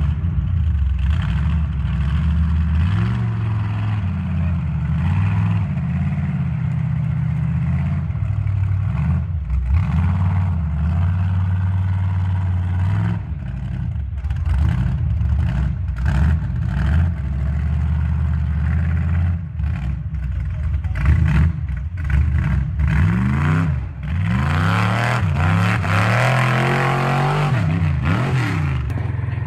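Jeep Wrangler's engine revving up and down as it crawls over rough, muddy off-road ground, its note rising and falling again and again. It revs hardest and fastest near the end.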